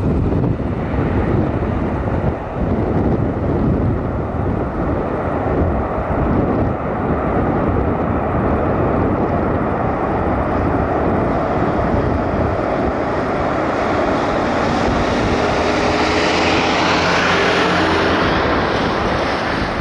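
Airliner engines running loud and steady, with wind gusting on the microphone. A whine builds over the last few seconds, then the sound cuts off abruptly.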